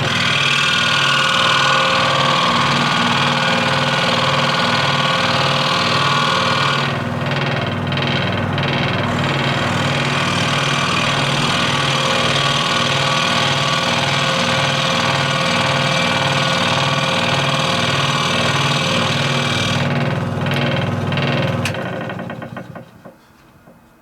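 AF-eco1 scroll saw running, its blade cutting wood in a steady fast stroke. The cutting hiss drops out briefly about 7 s in and again about 20 s in, then the saw is switched off and winds down to a stop near the end.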